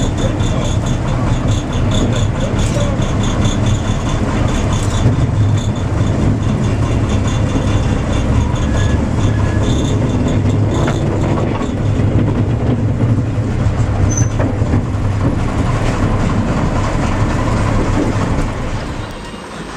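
A train rolling slowly along the track, heard from on board: a steady low rumble with the clatter of wheels over rail joints and points. It falls away just before the end.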